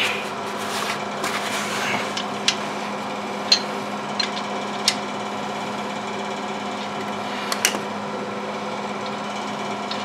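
Steady hum of a running shop heater, with several scattered sharp metal clinks, the loudest about three and a half seconds in, as hands work the crankshaft and loosened main bearing caps of a GM 2.4 L Quad 4 engine block.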